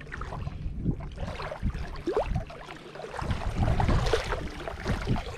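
Shallow water sloshing and splashing, with wind on the microphone.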